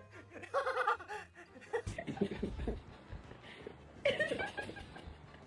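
A person laughing in short bursts, with a few low thuds in between.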